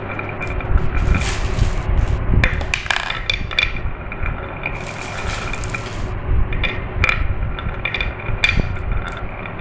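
Glass marbles rolling down a marble-run track, a steady rumble broken by irregular clicks and clacks as they knock against the track and each other.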